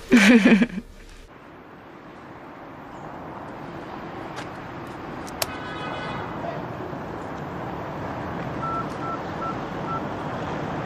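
A brief bit of speech, then the steady noise of street traffic; a cash machine's keys click a couple of times about halfway through, and the machine gives four short beeps near the end.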